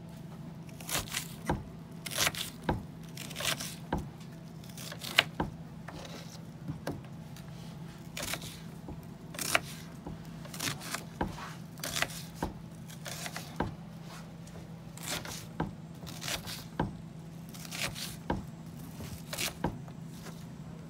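Kitchen knife cutting and dicing a peeled onion on a plastic cutting board: irregular sharp cuts, about one or two a second, over a steady low hum.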